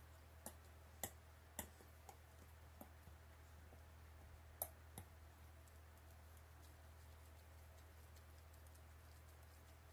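Dog chewing a rubber Kong Widget toy: a handful of short, sharp clicks of teeth on the toy in the first five seconds, then none, over a faint low steady hum.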